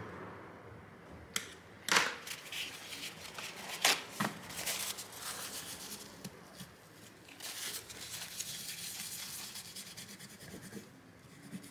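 A few sharp clicks and scrapes as a thin pick works dried, hardened thermal paste off a graphics card's GPU die, then a paper towel rubbing and crinkling as the old paste is wiped away.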